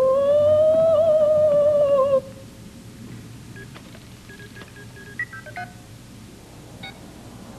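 Electronic sci-fi sound effects: a loud electronic tone swoops upward, holds with a slight waver, then cuts off about two seconds in. After it, a run of short electronic beeps from a control console, and a single click near the end.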